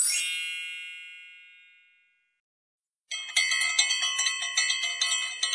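A bright, bell-like chime sound effect rings once and fades away over about two seconds. After a short silence, a quick jingly run of bell-like notes starts about three seconds in.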